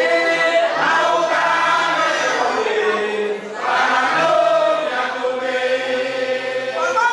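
A group of voices singing a chant-like song together, holding long notes, with a short break about three and a half seconds in.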